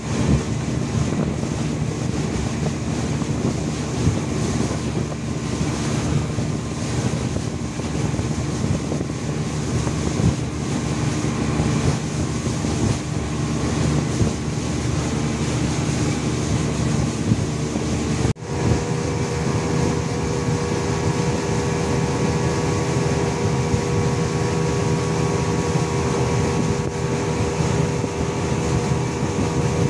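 Speedboat engine running steadily at speed, with wind buffeting the microphone and water rushing past the hull. The sound cuts out for a moment about two-thirds of the way through, and the engine note is steadier after it.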